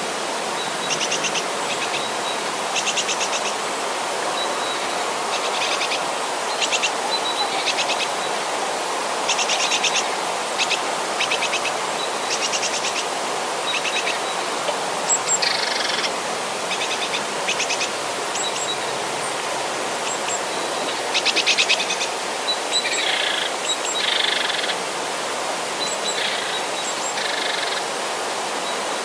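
Mountain river running with a steady rush, with birds singing over it: short, rapid high trills and chirps every second or two.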